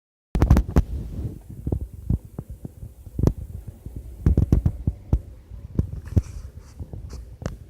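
Snoring: irregular, loud, low rumbling snorts and thumps.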